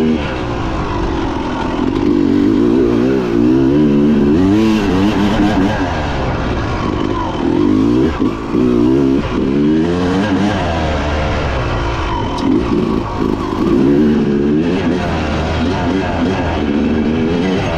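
Dirt bike engine revving up and down while riding, its pitch climbing and dropping again every second or two.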